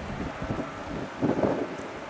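Wind buffeting the microphone in irregular gusts, with a louder buffet about a second in, over a steady low rumbling haze.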